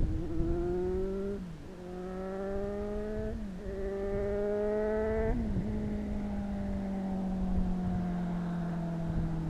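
Kawasaki Z800's inline-four engine through an SC Project exhaust, accelerating through the gears. Its pitch climbs and drops sharply at each of three upshifts, then falls slowly as the throttle is rolled off.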